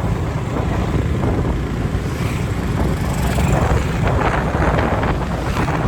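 Wind buffeting the microphone over a low, steady vehicle rumble, with fainter street sounds mixed in during the second half.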